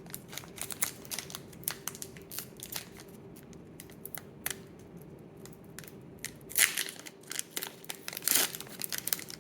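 Trading card pack wrapper crinkling and tearing as the pack is ripped open, in irregular sharp crackles that get louder near the end.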